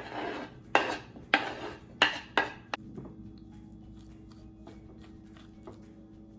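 Diced boiled potatoes scraped and knocked off a wooden cutting board into a glass bowl: about five short scraping strokes in the first three seconds, the last a sharp click, then only faint light clinks of mixing.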